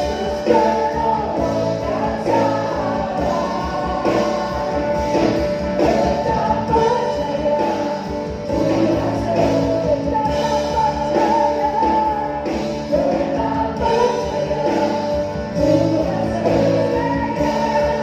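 A choir singing a worship song with a full band accompaniment, steady throughout.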